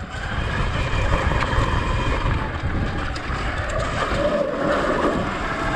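Sur-Ron X electric dirt bike riding along a dirt trail: heavy wind buffeting on the microphone and tyres rolling over the dirt, with a faint motor whine that rises and falls in pitch with speed.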